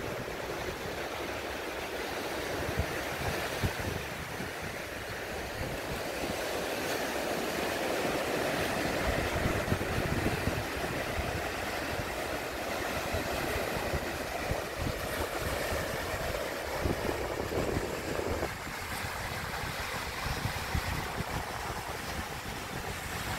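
Small surf breaking and washing up a sandy beach, with wind buffeting the microphone.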